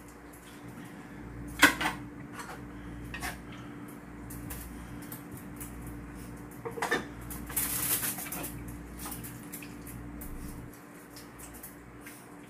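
Metal tongs and chopsticks clinking against a wok and ceramic bowls while noodle soup is served, with the loudest clink about two seconds in and a couple more around seven seconds. A brief rush of noise comes near eight seconds, over a steady low hum.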